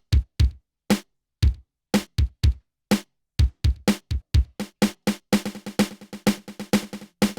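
Synthesized kick and snare drum sounds, each fired by a tap on a contact-miked stool acting as a drum trigger. They play as a loose beat of separate hits, then speed up about five seconds in into a rapid roll.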